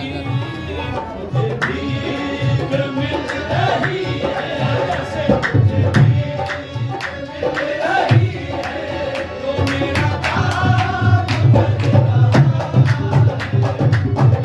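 Live Sufi qawwali music: a harmonium holding sustained chords under a lead voice's wavering melismatic line, driven by a tabla's rapid strokes and pulsing bass drum.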